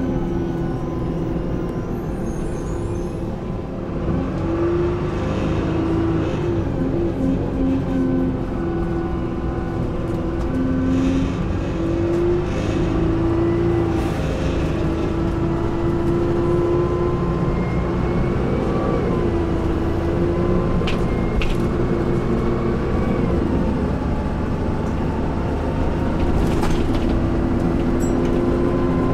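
Dennis Dart SLF single-deck bus heard from inside the saloon, its engine and drivetrain running as it drives along. Under the steady rumble sit several whining tones that rise and fall with speed.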